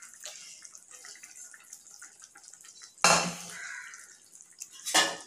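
Faint bubbling and crackling of a curry simmering in a clay pot, broken by a louder clatter about three seconds in and a sharp clank of a kitchen utensil near the end.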